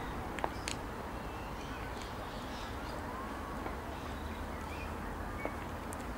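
Outdoor park ambience with birds calling, a steady low background rumble, and a few sharp clicks of high heels striking a tarmac path.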